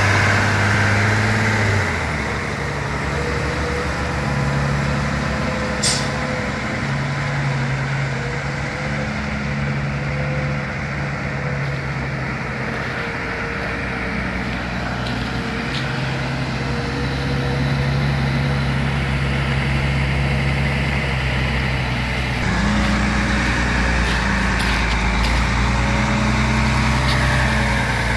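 Bell B40D articulated dump truck's diesel engine running steadily. From about three-quarters of the way in, its pitch rises and falls for several seconds while the dump body is raised.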